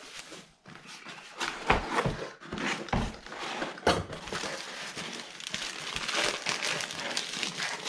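Bubble wrap crinkling and cardboard packaging rustling as a shipping box is unpacked by hand, with several sharp knocks of cardboard against cardboard or the table.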